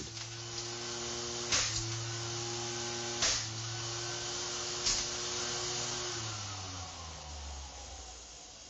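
Electric Flymo air-cushion mower running with a steady hum while steel ball bearings fired by compressed air strike its spinning blade and ABS hood: three sharp knocks about a second and a half apart. About six seconds in, the motor winds down, its pitch falling as it fades.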